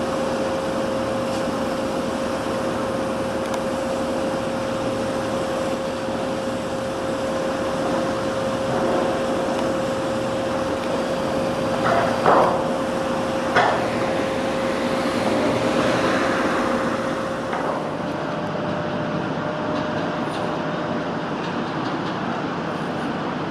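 Steady machine noise with a constant whine, broken by two sharp knocks about halfway through; the whine stops a few seconds before the end.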